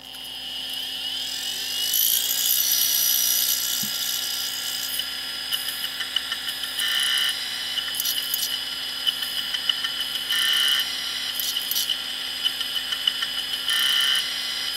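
An opened Quantum ProDrive ELS 170 MB SCSI hard drive spins up with a rising whine. It then runs with a steady high whine while its head arm clicks and chatters, with a brighter burst every few seconds. The drive is failing from the deteriorated rubber thing: its heads are damaged and the platter is scored.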